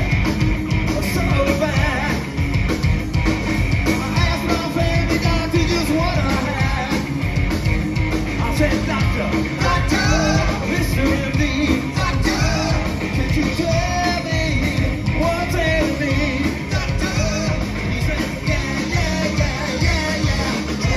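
Live rock band playing loudly, with electric guitars, bass and a drum kit under a male lead singer's voice.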